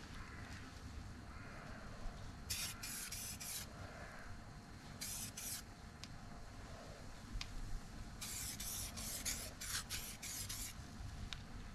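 Paint being sprayed in short hissing bursts: a cluster of quick passes about two and a half seconds in, a couple more about five seconds in, and a longer run of rapid bursts from about eight seconds to nearly eleven.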